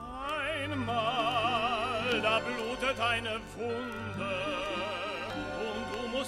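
Operetta singing in a trained classical style with wide vibrato, holding long notes over an orchestra, played from an old, rather poor-sounding mono record. A steady low hum runs beneath.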